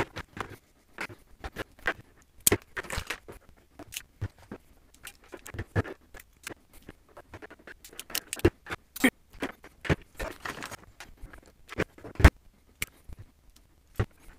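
Irregular clicks, snips and scrapes of hand tools and electrical wire being handled on a tabletop as wire is cut, stripped and crimped, with the sharpest snaps a few seconds apart.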